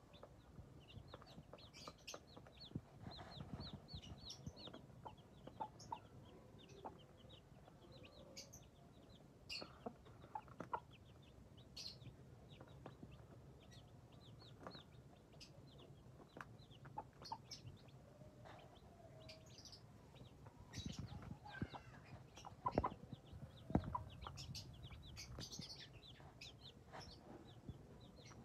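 Young chicks peeping, many short high chirps in quick runs, with a mother hen's low clucks now and then and light ticks of beaks pecking grain on concrete.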